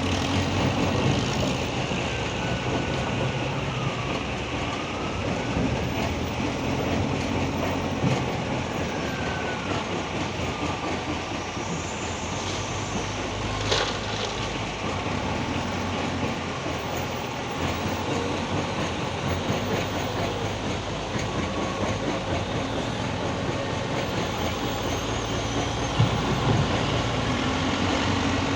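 Hitachi hydraulic excavator working: its diesel engine runs steadily under a whine that rises and falls several times in the first eight seconds. There is a sharp knock about halfway through and another knock near the end.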